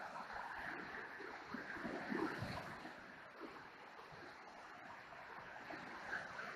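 Steady rushing of the Niagara River's whitewater rapids, heard through the trees, with a few low thumps, the loudest about two seconds in.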